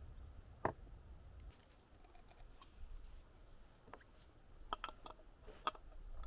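A few faint, sharp clicks and light taps: one about a second in, then a cluster between four and six seconds in, over a low steady rumble.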